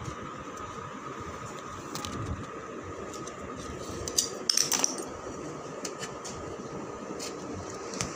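A few light clinks and scrapes against a stainless steel plate as sandwich halves are moved about on it, the loudest cluster about four and a half seconds in, over a steady background hum.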